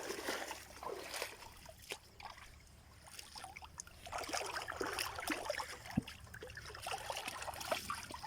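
River water trickling and lapping, with scattered small clicks and knocks; one sharper knock comes about six seconds in.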